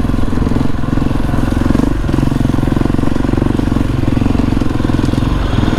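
Single-cylinder four-stroke dirt bike engine running steadily while riding along, its firing pulses coming fast and even.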